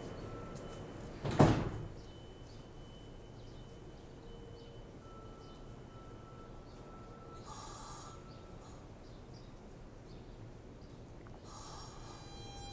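R160 subway train standing at the platform with a faint steady hum, one loud thump about a second and a half in, and two short hisses, about eight and twelve seconds in.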